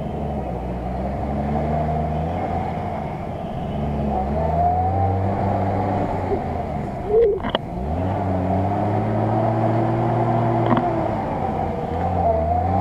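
Off-road truck engine working hard through deep mud, its revs rising and falling. About seven seconds in there is a sharp knock, after which the engine note drops and then climbs again.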